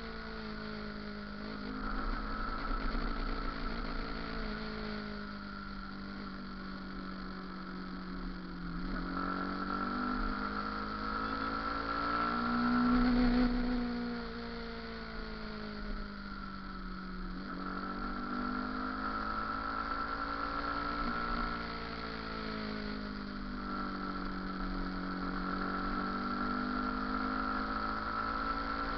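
Motorcycle engine running while the bike is ridden, its revs rising and falling slowly several times.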